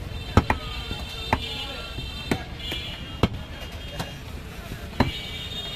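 Butcher's cleaver chopping beef on a wooden log chopping block: sharp thuds about once a second, with two in quick succession near the start.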